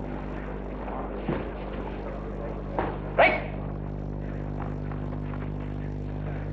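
Boxing arena crowd noise during a bout: a low murmur over a steady hum in the old broadcast recording, broken by a few short sharp sounds, the loudest about three seconds in.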